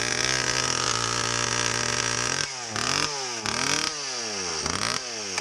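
Stihl MS170 30cc two-stroke chainsaw with a home-made exhaust pipe, running steadily, then revved up and down several times from about two and a half seconds in. It is running badly, with its air filter thought to be starving the engine of air.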